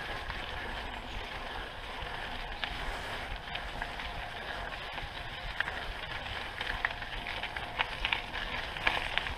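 Mountain unicycle's tyre rolling down a gravel path strewn with leaves: a steady rumbling rush with scattered small clicks and crunches, which come more often near the end.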